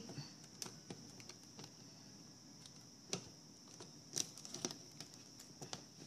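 Faint, scattered clicks and ticks of a clear plastic container lid being handled and pressed down while it is taped shut.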